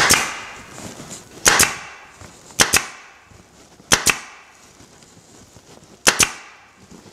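Long-nose upholstery staple gun firing five times at uneven intervals, each shot a sharp double crack, driving staples through folded-over jute webbing into the oak seat frame.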